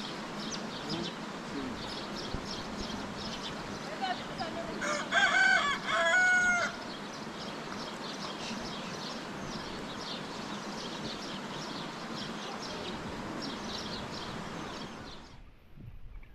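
A rooster crows once, loud, about five seconds in, its call broken into two parts, over a steady background of many small birds chirping. The background cuts off abruptly near the end.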